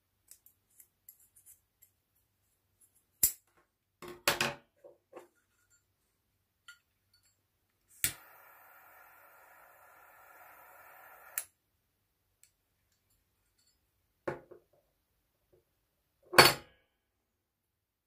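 Butane torch lighter clicking on and hissing with a steady jet flame for about three and a half seconds, then clicking off, used to melt the cut paracord end. Around it are a few sharp clicks and clacks from the metal tools being handled.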